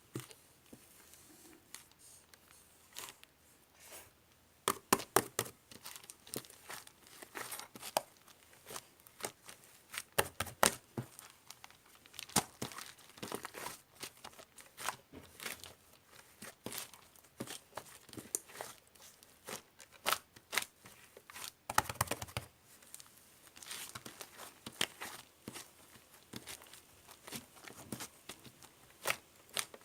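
Slime being squeezed, stretched and pressed by hand, giving irregular sticky crackles and small popping sounds in quick clusters.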